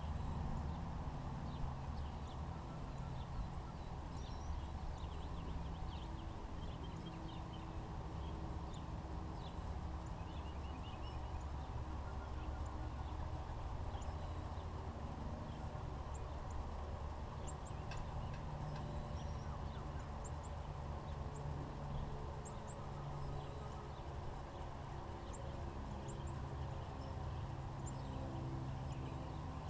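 Pigeons cooing in a low pitch on and off, with scattered short high chirps of small birds over a steady low rumble.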